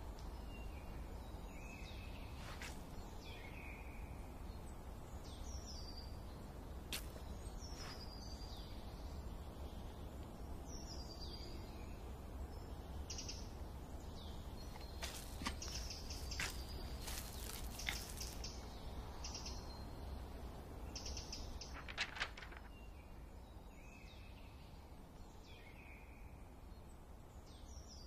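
Forest ambience: small birds chirping and calling, with short downward-gliding whistles repeating every second or two over a steady low rumble and hiss. A run of sharp clicks comes about halfway through, and two more near the end.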